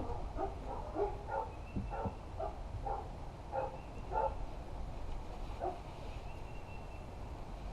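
An animal calling over and over in short calls, about ten in the first four seconds and one more a couple of seconds later.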